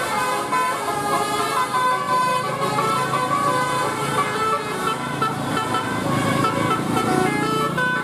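Bus telolet horn, a multi-note "basuri" klakson, playing a quick tune of short notes that step up and down in pitch. Engine and traffic noise run underneath, growing louder in the second half.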